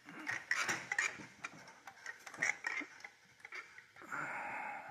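Someone climbing a wooden stepladder: a run of irregular knocks, creaks and clicks from feet and hands on the rungs, then a short steady rustling hiss near the end.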